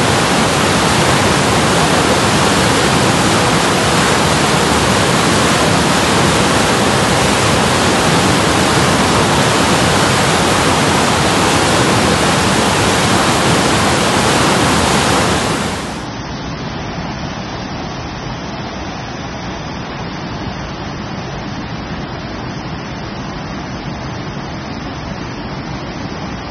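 Flash-flood water rushing and churning in a loud, dense, steady rush. About sixteen seconds in it cuts to a quieter, duller rush of floodwater.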